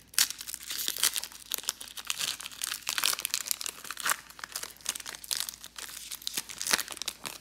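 Foil wrapper of a Pokémon trading-card booster pack being torn and peeled open by hand, crinkling and crackling in a dense run of sharp crackles.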